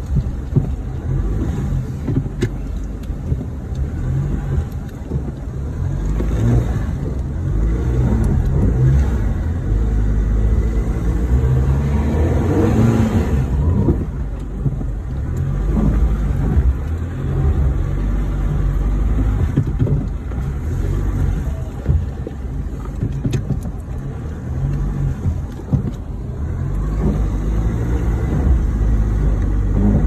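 Engine and drivetrain of a four-wheel-drive vehicle heard from inside its cab as it drives along, a steady low rumble whose pitch rises and falls as the engine works, swelling louder about twelve seconds in.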